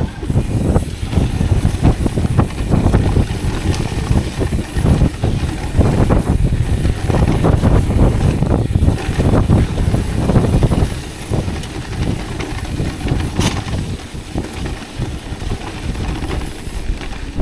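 Mountain bike riding fast down a dirt flow trail: wind rushing over the camera microphone and the bike rattling and rumbling over the ground. Louder for the first ten seconds or so, then easing.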